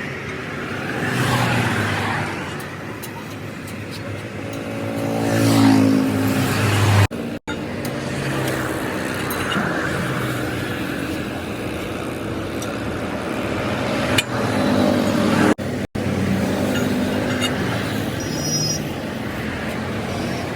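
Road vehicle engines running, with the engine pitch rising and then falling as a vehicle passes about six seconds in. There are abrupt cuts about seven and sixteen seconds in.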